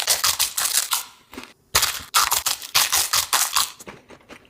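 Loud, crisp crunching of a giant Dorito tortilla chip being bitten and chewed, a quick irregular run of snaps and crackles that thins out near the end.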